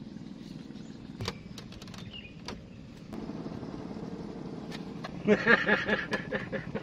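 A boat's engine running on the water: a steady low hum that starts about three seconds in and grows into a loud, evenly pulsing sound near the end. A few sharp clicks of fishing rods being handled come before it.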